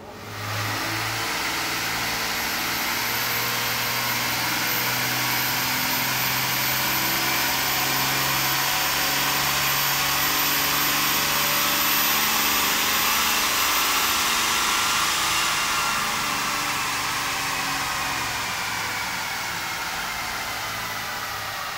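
Stock 6.7L Cummins inline-six turbo-diesel in a 2014 Ram pickup making a full-throttle baseline pull on a chassis dyno: the engine comes in sharply and builds steadily, with a high thin whistle over it. About 15 seconds in it eases off and winds down, falling in pitch.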